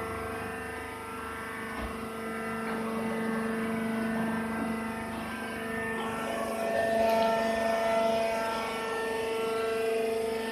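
Machinery running: a steady droning hum with a whine that grows somewhat louder about two-thirds of the way through.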